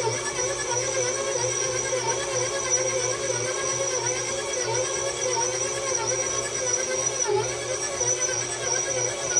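KitchenAid stand mixer running steadily with a whine as its dough hook kneads bread dough in the steel bowl, the pitch wavering slightly in a regular rhythm as the hook turns the dough.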